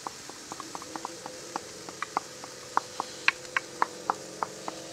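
Wooden spoon tapping and scraping against a small metal bowl to knock spices and tomato puree out into a pan. There are some twenty quick, irregular taps, louder in the second half, and the bowl rings faintly between them.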